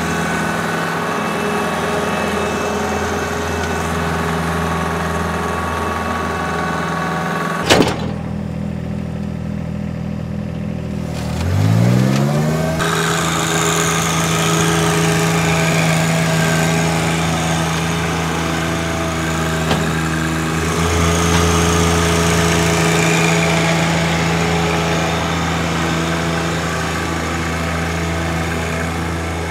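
Compact tractor engines running steadily under load: first with a power harrow working the soil, then, after a sharp click about eight seconds in, a John Deere compact tractor pulling a seed planter. Its engine revs up about twelve seconds in, then holds a steady speed.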